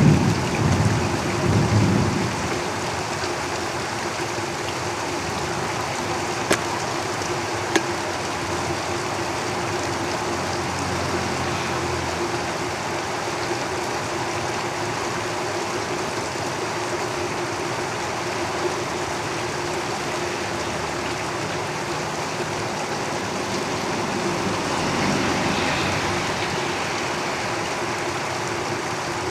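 Steady heavy rain drumming on a house roof, with two sharp drip ticks a few seconds in. A low rumble in the first two seconds and a swell near the end come from vehicles passing on the road.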